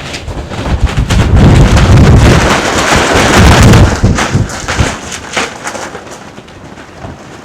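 A strong gust of wind buffeting the microphone, building about a second in, loudest for a couple of seconds, then easing off, with scattered crackles through it.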